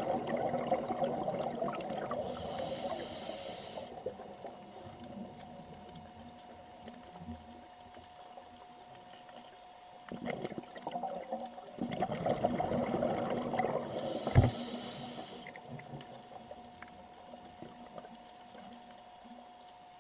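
Scuba diver breathing through a regulator, heard underwater: bubbly exhalations, each followed by a high hissing inhalation, two breaths in all. A faint steady hum runs throughout, and there is a sharp knock about fourteen seconds in.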